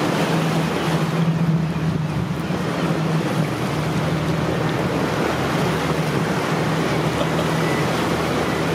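A rigid hull inflatable boat's engine running steadily, working against a strong tidal current, over the rush of churning, swirling water and wind.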